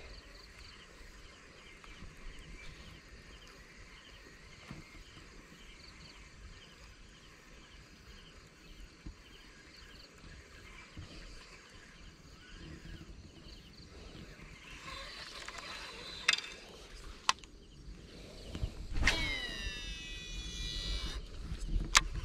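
Faint open-air marsh ambience with a soft, regularly repeating high chirp. Near the end come a few sharp clicks, rustling and brief falling squeals as the fishing rod and gear are handled.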